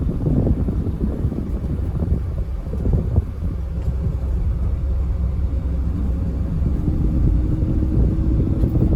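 Steady low rumble of a moving vehicle, with a faint steady hum coming in near the end.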